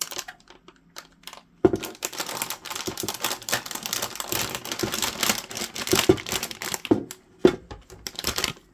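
Plastic packaging crinkling and rustling as a PCIe riser cable is handled. Dense crackles start about a second and a half in, with a brief pause near the end before more crackling.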